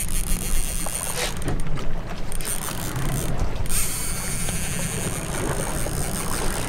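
Two-speed conventional fishing reel being cranked in low gear under load while fighting a fish, its mechanism clicking, over the steady low sound of idling twin Suzuki 250 outboard engines.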